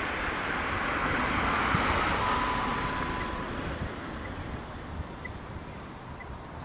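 A road vehicle passing by: the tyre and engine noise swells to a peak about two seconds in, then fades. Faint ticks repeat about once a second.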